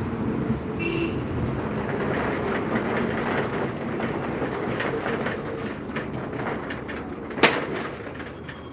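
Road traffic noise: a steady rumble of passing vehicles that fades toward the end, broken by a single sharp knock about seven seconds in.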